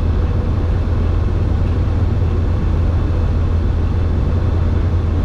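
Direct Fly Alto 100 light sport airplane's Rotax 912 engine and propeller running steadily, heard from inside the cockpit as a constant low drone on final approach.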